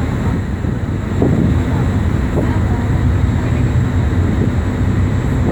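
Steady low drone of a boat's engine, with faint voices in the background.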